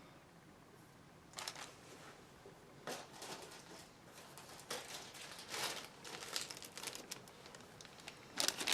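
Plastic bags holding model-kit parts crinkling as they are handled, in irregular rustles that start about a second and a half in and get busier toward the end.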